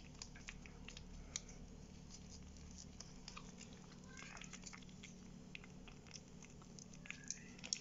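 Chihuahua puppy eating shredded chicken from a small plastic dish: faint chewing with scattered small clicks. She is very hungry and eats desperately.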